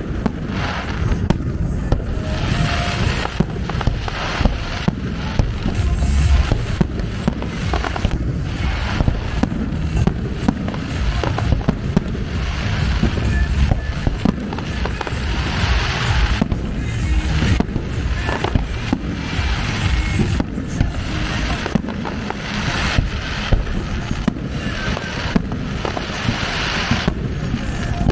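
Aerial firework shells bursting one after another in a steady barrage, sharp bangs over a continuous low rumble, with several stretches of crackling stars.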